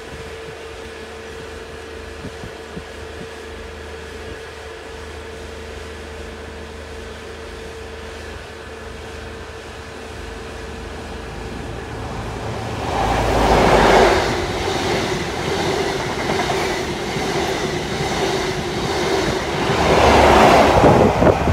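CrossCountry InterCity 125 (HST) passing: the sound builds from about halfway in, the leading Class 43 power car's MTU diesel engine goes by loud about two-thirds in, the coaches run past with wheel clatter over the rails, and the trailing power car goes by loudest near the end.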